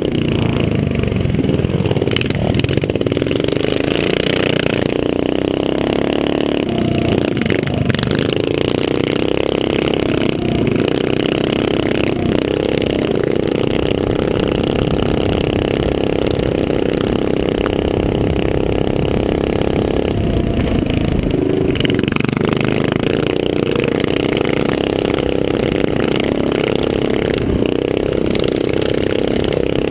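A small dirt bike's engine running hard, heard from a camera mounted on the bike. Its pitch drops briefly and climbs again about seven and twenty-one seconds in.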